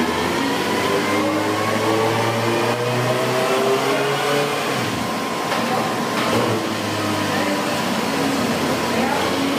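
Suzuki GSX-R sportbike's inline-four engine revving on a chassis dynamometer, its pitch climbing steadily for several seconds. The pitch drops briefly about five and six seconds in, then climbs again.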